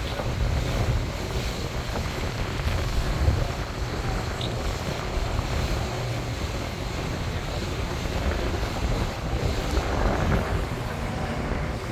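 Wind buffeting the microphone aboard a moving harbour ferry, over the steady rush of water and the boat's engine.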